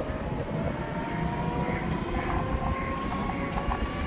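Rickshaw riding along a street: steady low road rumble and rattling of the frame, with a thin whine slowly rising in pitch.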